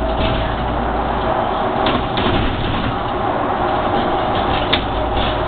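Interior of a SOR city bus on the move: steady engine and road noise with a constant whine, the deep rumble easing off for a moment about a second and a half in. A few short rattles, the sharpest near the end.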